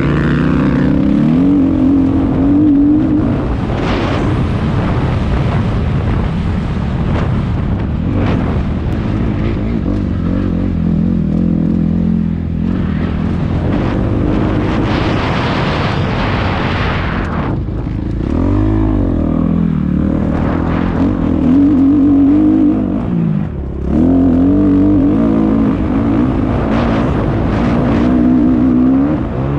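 Kawasaki KX250F four-stroke single-cylinder dirt bike engine being ridden hard, its pitch rising and falling again and again as the throttle is opened and rolled off. A loud rushing hiss swells for a few seconds in the middle.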